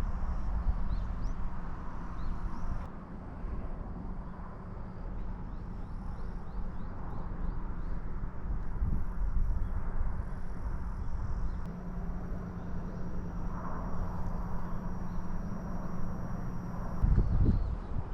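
Steady low vehicle rumble with a constant hum, louder low thumps near the end.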